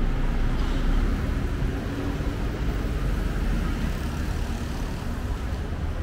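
City street traffic noise: a steady rumble of motor vehicles, easing slightly after the first second or so.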